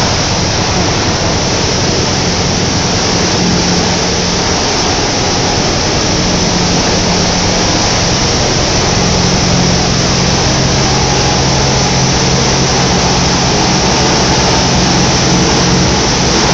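Tissue paper production machinery running: a loud, steady mechanical roar with a low hum underneath that does not change.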